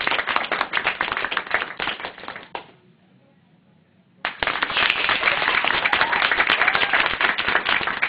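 Audience clapping as an applause vote for one painting, dying away about two and a half seconds in. After a brief hush the clapping breaks out again sharply for the next painting.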